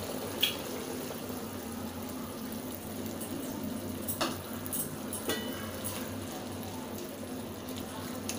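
Cornflour slurry poured into a kadai of simmering chili sauce, which then bubbles steadily with a few light clicks; a metal ladle starts stirring it near the end.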